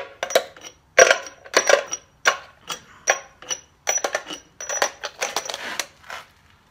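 Irregular sharp metallic clinks and clatter, a dozen or so, some ringing briefly: loosened steel head bolts being pulled by hand from the cast-iron cylinder head of a Dodge 230 flathead six and dropped together.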